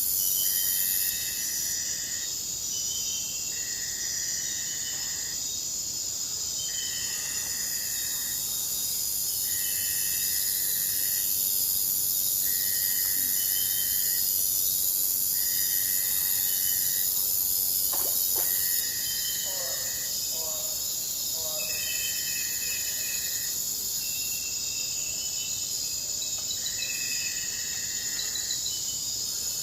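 Forest ambience: a steady, high-pitched insect chorus with a separate call about a second long that repeats roughly every two seconds. A few short bird chirps come about two-thirds of the way through.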